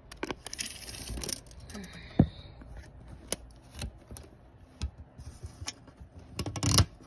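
Handling noise while measuring with a tape measure against a bamboo frame: scattered clicks and scraping, with one sharp click about two seconds in and a longer rustling scrape near the end.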